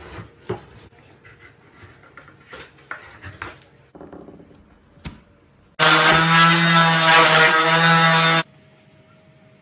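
A power tool's motor runs steadily for about two and a half seconds, starting and stopping abruptly, after a few seconds of light tapping and scraping.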